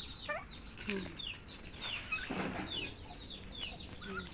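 A flock of chickens and Muscovy ducks feeding: a steady run of short, high, falling peeps about three a second, with a few low clucks early on and a brief flutter of wings a little past the middle.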